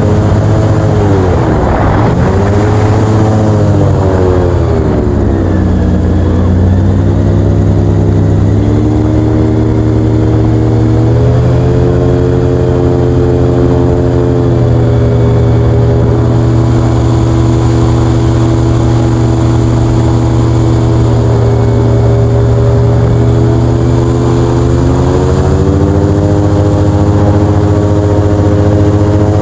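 Airboat engine and big air propeller running loud and steady, the engine pitch dropping and climbing back a few times as the throttle is eased and opened.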